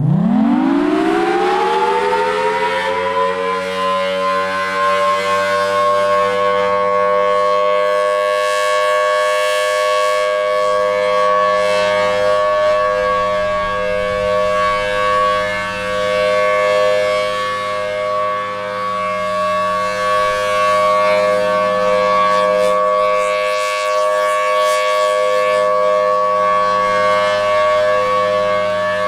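Federal Signal Thunderbolt 1000T outdoor warning siren winding up on a Full Alert steady signal. Its pitch climbs over the first few seconds, then it holds a steady tone made of several notes at once, the loudness swelling and dipping slightly.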